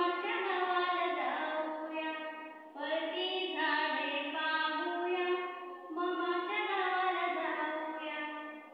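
A woman singing solo and unaccompanied, a children's lesson song, in phrases of held notes with short breaks about every three seconds.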